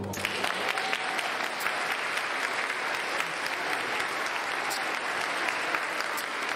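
A crowd of children and adults applauding, dense steady clapping with no break.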